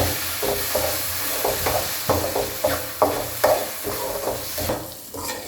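Chilli paste frying in oil with onion, garlic and fish cake, sizzling while a spoon stirs and scrapes the pan in repeated strokes, about two or three a second. It is being sautéed until its raw smell cooks off. The sizzle dies down near the end.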